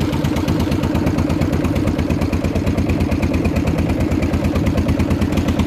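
Fishing boat's engine running steadily as the boat moves along, a loud, even, rapid pulsing beat.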